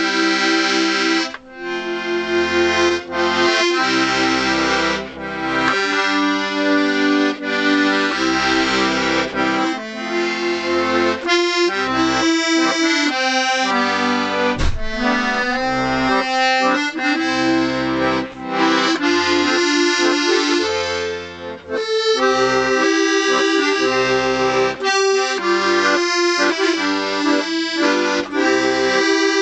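Vintage Scarlatti 24-bass piano accordion playing a tune, with melody over rhythmic bass and chords and short breaks between phrases. It has a rich tremolo sound. Its refitted reeds have not yet been tuned.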